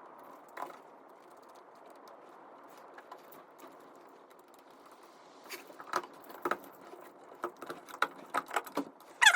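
Light clicks and taps of small hardware and tools being handled over a faint steady hiss. They are scattered at first, then come in a quicker run over the last few seconds, ending on a louder burst.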